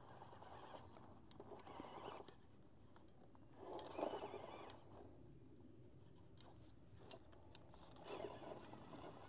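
Faint scraping of an FMS FCX18 Hummer EV RC crawler's tyres and drivetrain as it inches up a rock ledge. The scraping comes in soft swells, loudest about four seconds in.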